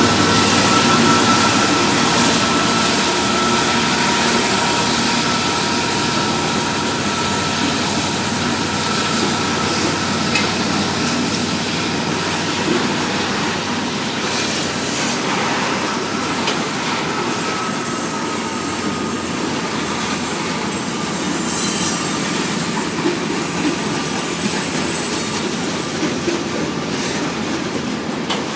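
Freight train cars rolling past, steel wheels on the rails making a steady dense rumble and clatter, with a thin high wheel squeal that fades about halfway through.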